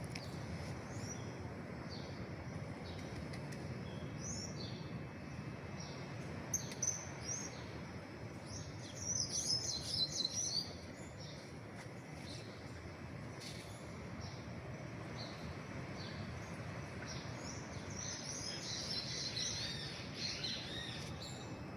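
Small birds chirping with short repeated calls, breaking into busier twittering twice, about nine seconds in and again near the end, over a steady background hiss.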